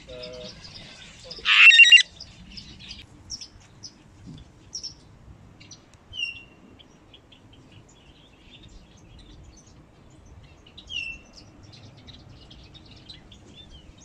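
A parrot gives one loud, harsh squawk about one and a half seconds in. Small birds chirp and whistle here and there afterwards, with a couple of clearer short calls.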